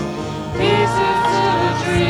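A sung note held over instrumental accompaniment, part of a song.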